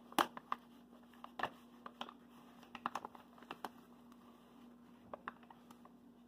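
Scattered light clicks and rustles of a bag and a cup being handled, over a steady low hum.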